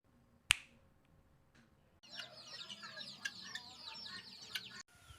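A single sharp click, then many birds chirping together in a dense run of quick high calls that starts abruptly about two seconds in and cuts off just before the end.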